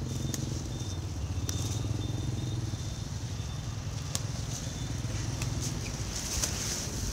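An engine running steadily at a low pitch, with a few sharp clicks over it.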